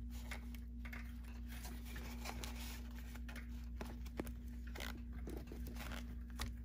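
Faint crinkling and rustling of gold foil heat-shield wrap as hands press against it, with small scattered clicks of parts being handled. A steady low hum underneath.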